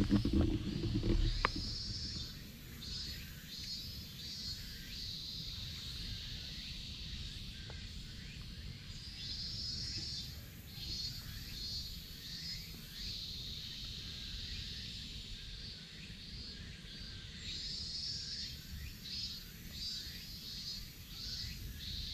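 Repeated high-pitched chirring animal calls in bursts of about a second each, over a steady low rumble; a louder, lower sound stands out in the first second and a half.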